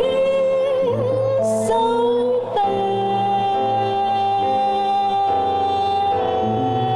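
Female jazz vocalist singing with piano and electric bass accompaniment. She holds one long high note from about two and a half seconds in, over a walking bass line.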